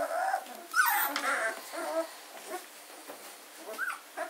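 Fourteen-day-old German shorthaired pointer puppies whimpering and squealing: a run of short high calls in the first couple of seconds, loudest about a second in, then a single short squeak near the end.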